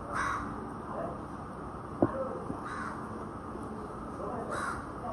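A bird calling three times, about two seconds apart, with a single sharp click about two seconds in.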